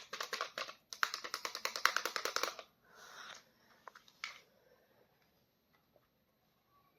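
Toy packaging and plastic figures being handled during unboxing, making a dense run of quick crackling clicks for about two and a half seconds, then a brief softer rustle and a couple of single clicks.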